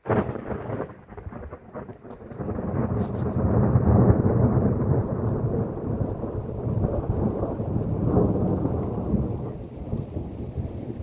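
Thunder from an overhead thunderstorm: a sudden clap, then a long rolling rumble that swells to its loudest about four seconds in and keeps going.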